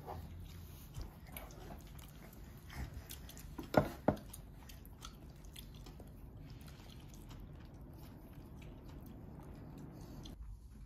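Quiet eating sounds: chewing and biting on a lettuce wrap of stir-fried pork belly and bean sprouts. Scattered small clicks run through it, with two sharper ones about four seconds in.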